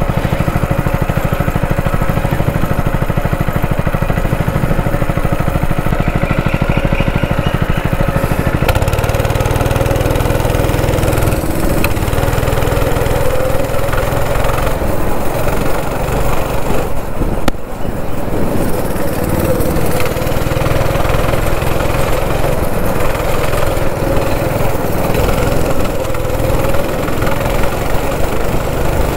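A go-kart's small engine running loud and steady under the driver while lapping the track, its pitch rising and falling with the throttle, with a short drop about seventeen seconds in.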